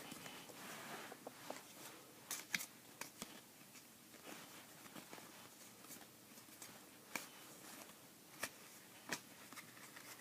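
Trading cards being handled and flipped through by hand: a soft rustle of card sliding on card, then faint scattered clicks and snaps as cards are shuffled.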